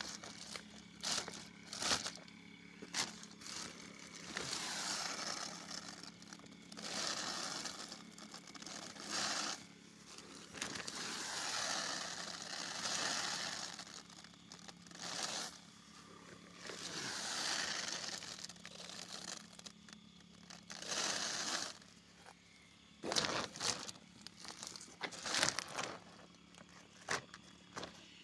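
Plastic sack liner and woven polypropylene fertilizer bag rustling and crinkling as they are handled, in repeated swells. Sharper crackles come near the end.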